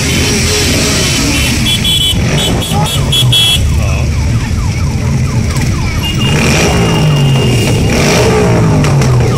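A procession of motorcycles riding slowly past, several engines running at once, their pitch rising and falling as each bike goes by and revs. Quick repeated high beeping sounds about two seconds in, and a steady high tone is held in the second half.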